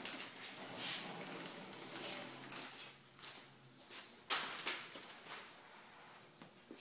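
Masking paper and tape being peeled off a car's painted hood, rustling and crinkling, with a sharp tearing rip about four seconds in.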